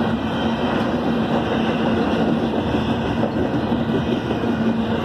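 Double-stack intermodal freight train of container-laden well cars rolling past: a steady rumble and clatter of wheels on rails, with a steady low hum.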